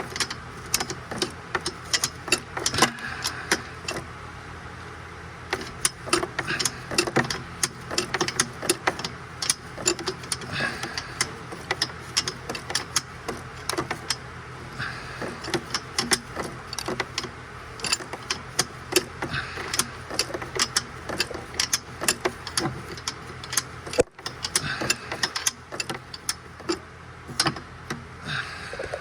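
Hand ratchet wrench clicking in quick, irregular runs as a bolt is worked loose by hand, with a brief pause early on, over a steady low hum.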